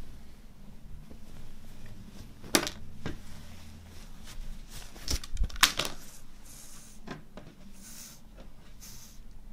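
A T-shirt being unfolded and spread out by hand on a wooden table: soft fabric rustling with a few sharp knocks, the loudest about two and a half and five and a half seconds in.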